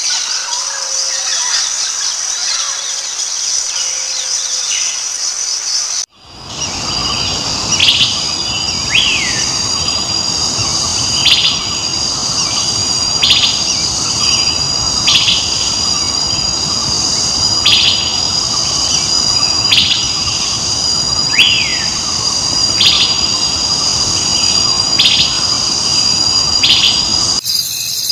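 Forest ambience: a steady high-pitched insect chorus with short bird chirps repeating every second or two and a couple of falling whistled notes. About six seconds in the sound cuts abruptly to a second ambience track with more background hiss under the insects, and it cuts again just before the end.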